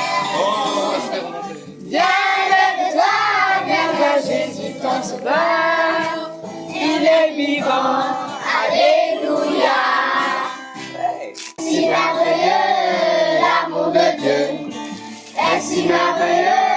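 Group of children singing a French Christian praise song together in chorus, with acoustic guitar accompaniment.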